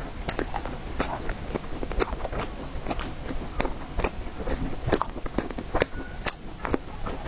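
Close-miked mouth eating tiger skin roll: soft, wet chewing with many small sticky clicks, several a second and irregular.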